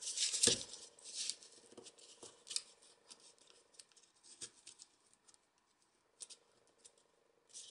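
Folded paper origami modules rustling and clicking as hands press them together into a ring. The crisp crinkling is busiest in the first second and a half, then thins to scattered light ticks.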